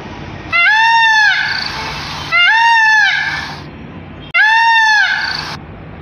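Indian peafowl giving three loud calls about two seconds apart, each under a second long and rising then falling in pitch.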